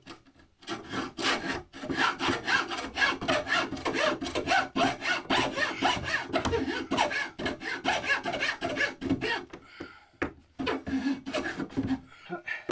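Hand saw cutting a V-shaped groove across a timber shelf rail with rapid short back-and-forth strokes, about three to four a second. The sawing breaks off briefly about ten seconds in, then a few more strokes follow.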